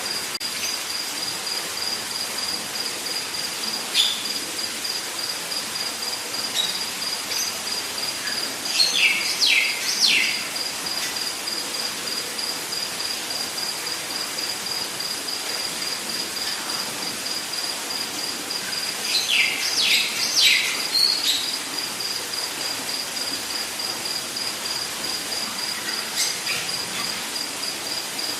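Rainforest ambience: a steady, high, pulsing insect trill over a constant hiss, with bird calls on top: two runs of several quick falling notes, about nine and twenty seconds in, and a few scattered single chirps.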